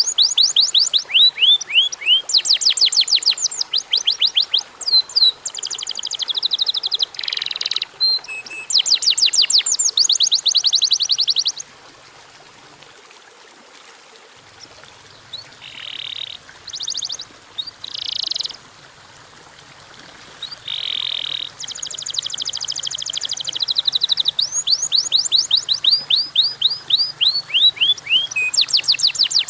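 Domestic canary singing: long, fast trills of repeated sweeping notes with quick changes between phrases. The song thins to a few short notes in the middle and then picks up again into rapid trills.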